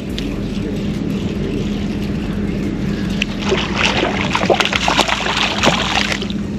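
Speckled trout on the line being reeled in to a boat, a steady low hum and wind noise underneath. From about halfway comes a quick run of clicks and splashes as the fish is brought thrashing to the surface.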